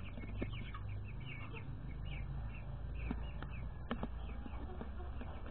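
Bantam chickens and chicks in a pen: a scatter of short, high peeps with some clucking, over a low rumble, with a couple of brief knocks about half a second and four seconds in.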